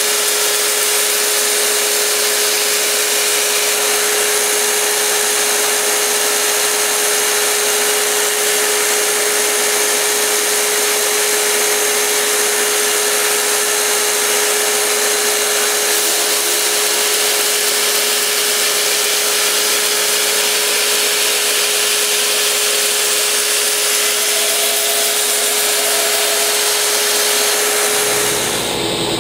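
Belt grinder running steadily, its abrasive belt hissing over a steady whine as the edge of a large Bowie knife is sharpened on the slack part of the belt. Near the end it gives way to a deeper-running machine.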